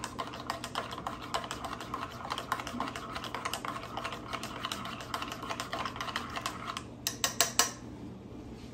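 A metal fork whisking a drink, its tines clicking rapidly against the cup. The stirring stops about seven seconds in, followed by a few louder clinks.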